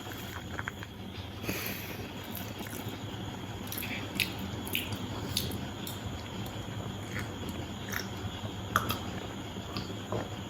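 A person chewing and eating biryani, with scattered small clicks and smacks over a steady low hum.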